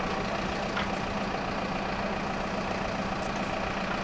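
Engine running steadily at an even speed: a constant hum holding one pitch.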